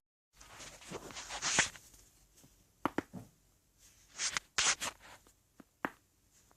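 Rustling of clothing and the treatment table during a chiropractic adjustment, with swishing bursts and a few short sharp clicks about three seconds in and again near six seconds.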